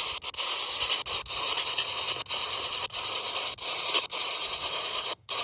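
Spirit box scanning through radio frequencies: a steady hiss of static chopped into short pieces about twice a second, with a brief cut-out near the end.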